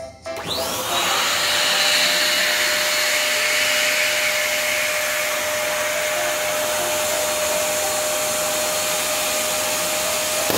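Electric balloon pump switching on, its motor whining up to speed, then running steadily with a constant hum while it inflates a latex balloon. At the very end the sound cuts off suddenly with a short bang, the balloon bursting on the pump.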